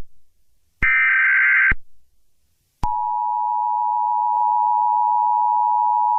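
Emergency Alert System tones: a one-second burst of the screechy SAME header data signal about a second in, then about three seconds in the two-tone EAS attention signal starts and holds steadily.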